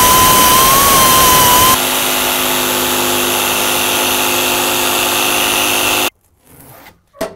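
A zip (cut-off) wheel whining steadily as it cuts through a fiberglass hood. Then, after about two seconds, a jigsaw buzzes steadily as it cuts the fiberglass, stopping suddenly about six seconds in, followed by a few light clicks.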